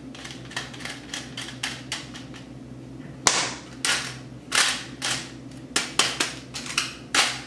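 Metal hand-operated flour sifter being worked over a mixing bowl, sifting flour and cocoa powder: a run of short scraping strokes of its wire agitator against the mesh, about two to three a second, faint at first and much louder from about three seconds in.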